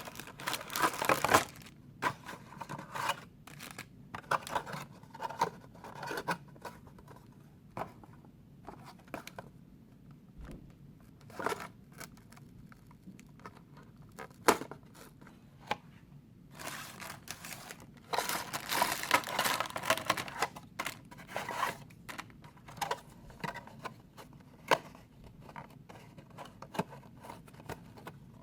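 Small cardboard Lego boxes being opened by hand: cardboard flaps and paper packaging tearing and crinkling in irregular bursts, with scattered sharp clicks from handling. The longest stretch of tearing and rustling comes about two-thirds of the way through.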